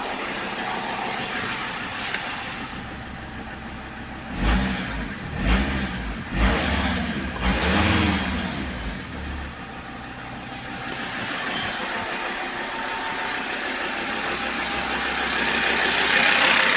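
Audi A6 C4 2.5 TDI inline five-cylinder turbodiesel idling, with about four quick throttle blips about four to nine seconds in, each rising and falling back to idle. The engine carries an intermittent ticking that the owner suspects comes from the injection pump or a hydraulic lifter.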